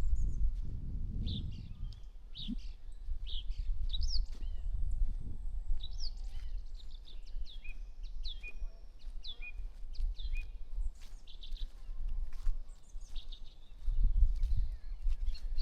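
Birdsong: many short, high chirps, most of them falling in pitch, through the whole stretch. A low rumble sits under it at the start and again near the end.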